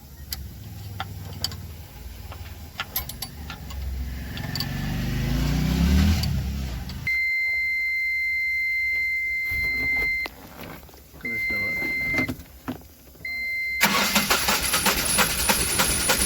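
Ashok Leyland Bada Dost diesel engine running and revving up over the first seven seconds, now going after the airlock in its fuel supply was cleared, then cutting out. A high, steady beep follows for about three seconds, then two shorter beeps. Near the end comes a loud rattling clatter.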